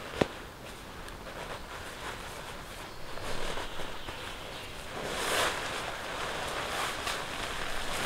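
Nylon hammock fabric rustling and swishing as it is pulled out of its hanging stuff sack, with a light click just after the start and the loudest rustle about five seconds in.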